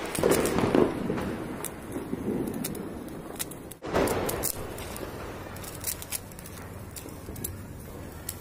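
Hand-held sparkler fizzing and crackling, with many scattered sharp pops. The sound briefly cuts out just before four seconds in, then returns louder.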